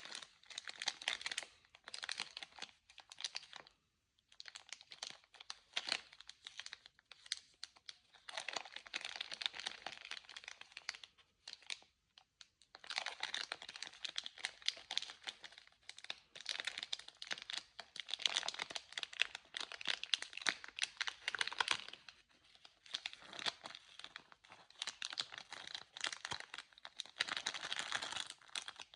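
Plastic candy wrappers crinkling and tearing in close-up as candy is unwrapped. The sound is a dense crackle that comes in bursts of a second or few, with short pauses between.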